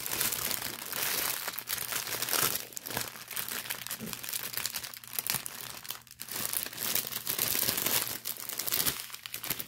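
Small clear plastic bags of diamond-painting drills crinkling and rustling on and off as they are handled and pushed back into their packaging.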